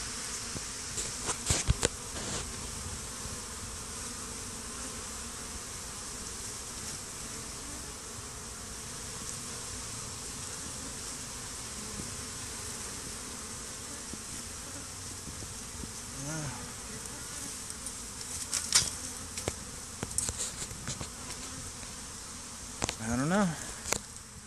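Honey bees buzzing steadily at close range, a crowd of them clustered on the screened bottom board under a hive. A few sharp knocks come about two seconds in and again around eighteen to twenty seconds in.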